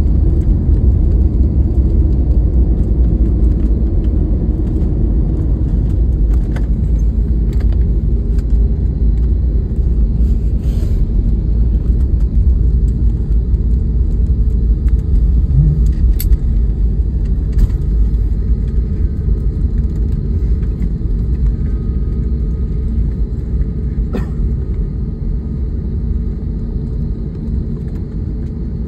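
Airliner cabin noise on the runway after landing: a steady low rumble from the plane rolling along the ground, slowly getting quieter, with a few faint clicks and rattles.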